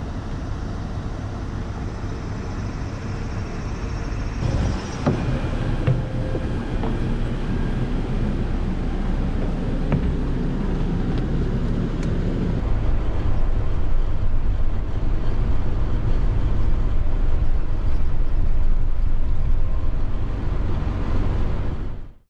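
City bus engine running with a steady low rumble. From about four seconds in it is heard from inside the bus cabin, with a few short knocks, and it grows louder in the second half.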